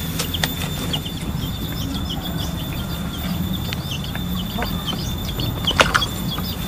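Outdoor ambience: short, scattered bird chirps over a steady low rumble, with a sharp click about six seconds in.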